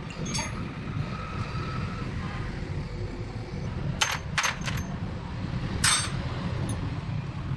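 Metal parts or tools clinking and clanging against each other, a few sharp ringing strikes: one near the start, three in quick succession about four seconds in, and a louder one near six seconds. A steady low rumble runs underneath.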